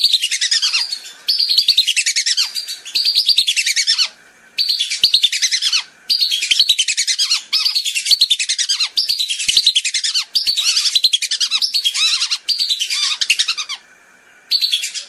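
Whistling duck calls played as a lure sound: shrill whistled notes in quick runs that slide down in pitch, coming in about ten bursts of one to one and a half seconds with short pauses between.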